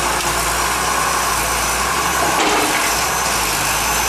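Tata Hitachi hydraulic excavator's diesel engine running steadily while it works.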